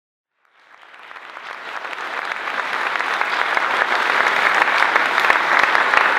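Audience applauding, fading in from silence and swelling to full strength over the first few seconds.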